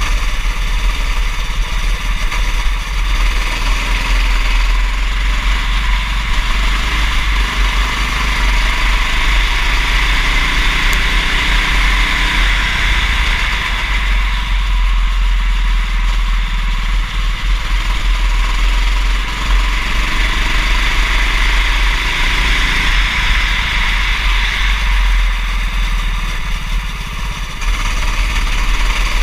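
Small kart engine running under load through a lap, its pitch rising and falling as the throttle is opened and lifted for the corners. Heavy wind rush and rumble on the microphone.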